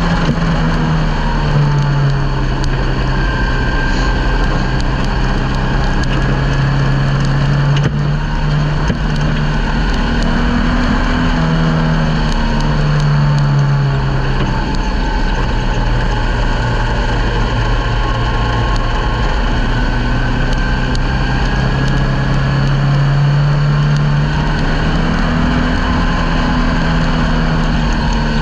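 Ministock race car's engine heard from inside the cockpit at racing speed. Its pitch rises and falls every few seconds with the throttle, over a steady rush of wind and dirt-track road noise.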